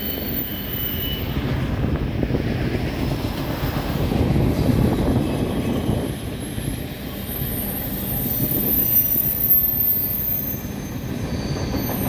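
Train rolling past on the tracks below, a steady rumble with thin high wheel squeals, mostly in the second half.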